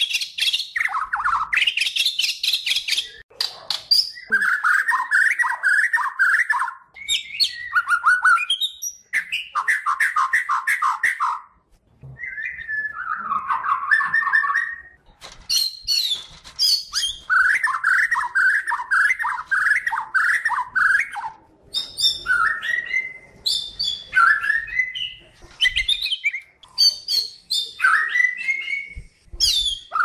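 White-rumped shama of the Bornean white-crowned race singing energetically. Phrases of fast, rattling repeated notes alternate with higher sharp whistles and chips, with short breaks between phrases.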